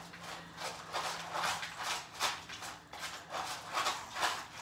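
Cats eating canned wet food from small cans on a tile floor: irregular soft clicks and smacks of chewing and licking, several a second.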